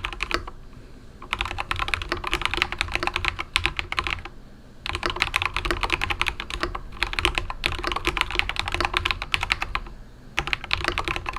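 Fast typing on a darkFlash GD100 mechanical keyboard with yellow switches. A few keystrokes come at the start, then three runs of rapid clicking keystrokes with brief pauses between them.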